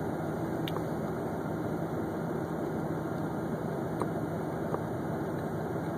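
Steady low machine hum with hiss, with a few faint clicks about a second in and again near four seconds.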